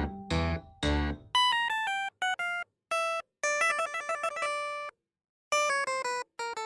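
Background music: strummed acoustic guitar chords give way, about a second in, to a bright melody of short plucked notes broken by several brief silent gaps.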